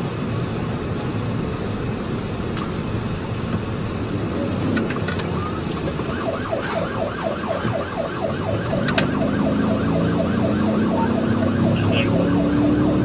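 Steady vehicle noise, then about six seconds in an emergency vehicle siren starts in a fast warbling yelp that keeps going, with a lower steady drone joining it a few seconds later.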